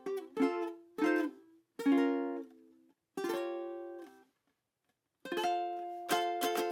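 Polycarbonate ukulele strummed, one chord at a time, each ringing out and fading. After a pause of about a second, the strums start again and the last chord is left to ring.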